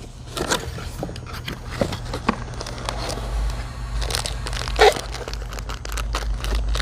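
Packaging crinkling and rustling as a tool is taken out of its box, with scattered small clicks and knocks and one louder clunk about five seconds in.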